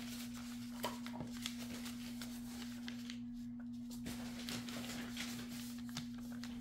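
Paper airplane being pressed and smoothed flat by hand on a wooden tabletop: faint scattered rustles and light taps of paper creasing. A steady low hum runs underneath.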